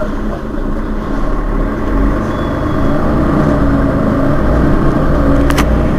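Mercedes-Benz Citaro city bus engine idling at a stop, its low rumble growing a little deeper and louder from about a second in. A couple of sharp clicks sound near the end.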